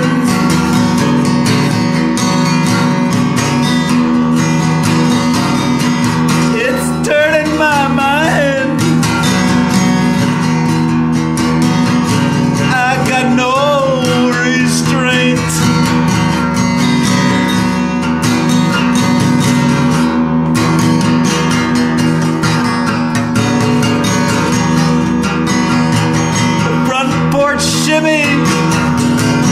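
Music: an acoustic guitar strummed steadily, with a wavering voice coming in briefly a few times.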